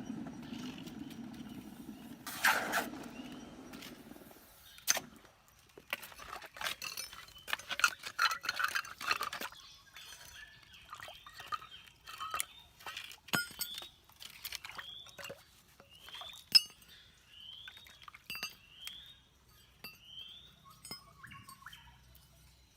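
Scattered hard clinks and taps. A low rushing noise fills the first four seconds. In the second half a bird calls again and again with short rising chirps, about one a second.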